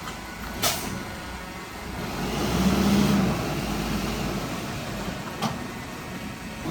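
Heavy diesel earthmoving machinery running. The engine swells louder for about a second around three seconds in, and there are two sharp knocks about five seconds apart.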